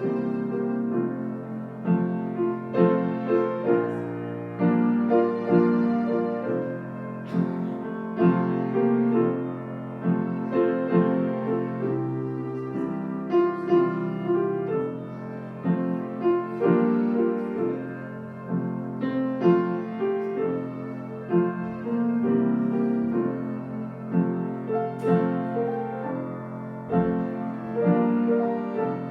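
Piano music: notes and chords played one after another.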